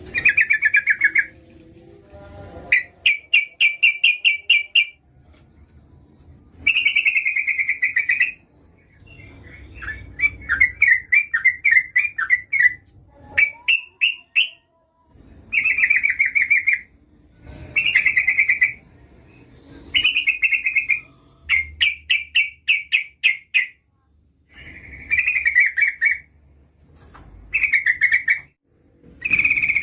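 Yellow-vented bulbul (trucukan) calling: short, loud phrases of rapid bubbling chattering notes, repeated about every two seconds with brief pauses between. Presented as a female calling to draw in a male.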